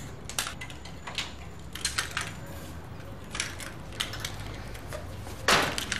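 Keys jangling and a floor lock clicking as a glass door is unlocked at floor level, a string of small metallic clicks and knocks. A louder burst of noise comes near the end.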